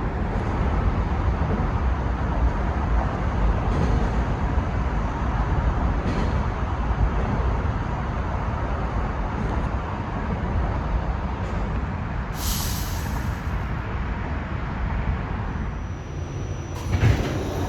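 New York City Subway R46 car running on the rails: a steady rumble of wheels and traction motors, with a short burst of air hiss about twelve seconds in.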